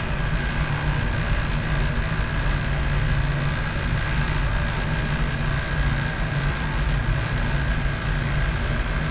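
Vacuum pump of a glass vacuum line running steadily: a constant low hum with a faint steady high tone over it.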